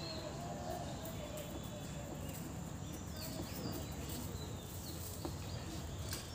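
Faint background of distant voices and small bird chirps over a steady low rumble.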